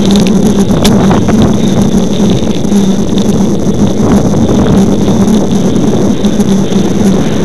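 Wind rushing over a bicycle-mounted camera's microphone at speed, with a steady low hum from the bike rolling on asphalt. A few light knocks come in the first second and a half.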